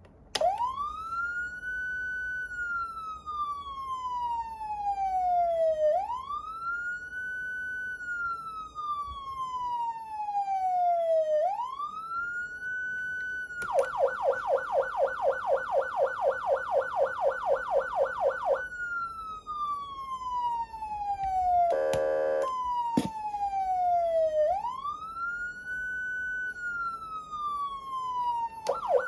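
Federal Signal Unitrol electronic siren amplifier and controller sounding a wail, each cycle rising quickly and then falling slowly over about five to six seconds. About halfway through it switches to a fast yelp of roughly five sweeps a second for about five seconds, then returns to the wail, and it switches to the yelp again near the end. A short buzzing blast and a click break into the wail a little before the last cycles.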